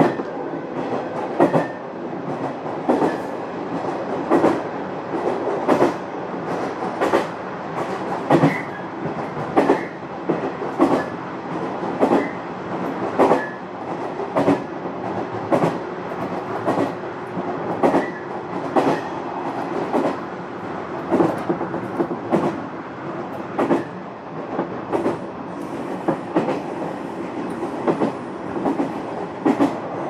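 JR West 201 series electric train running between stations, heard from inside the car: wheels clacking over rail joints about every second and a half over a steady running rumble.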